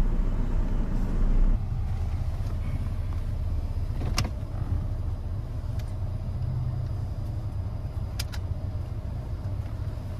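Ford Edge idling, heard from inside the cabin as a steady low rumble that is louder for the first second and a half and then settles lower. A few sharp clicks sound over it, the clearest about four and eight seconds in.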